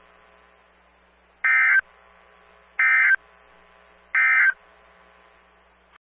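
Emergency Alert System end-of-message data bursts on NOAA Weather Radio: three short, loud digital buzzes about 1.3 seconds apart, marking the end of the flash flood emergency alert.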